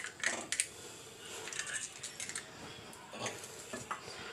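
An egg being cracked open with a steel knife over a clay pot: a few sharp clicks of blade and eggshell in the first second, then faint shell and handling clicks as it is pulled apart and dropped in.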